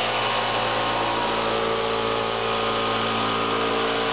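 Cordless jigsaw running steadily as it cuts across a luxury vinyl floor plank.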